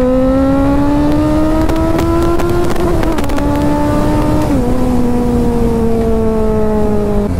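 Kawasaki Z900's 948 cc inline-four engine pulling hard at speed, its pitch climbing steadily for about three seconds, stepping down with an upshift about four and a half seconds in, then easing slightly, with a low wind rush underneath.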